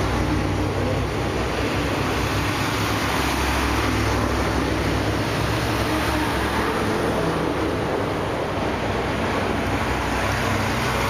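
Steady rumble of a moving motor vehicle, with road and wind noise and no let-up.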